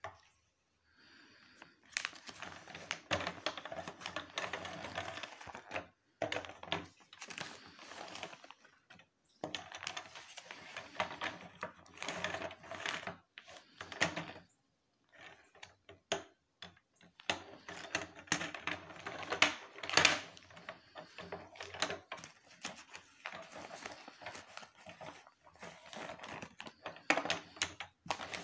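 Plastic linking cubes clicking and clattering against each other as rods of them are handled and taken out of a plastic bag, in bursts with a few short pauses.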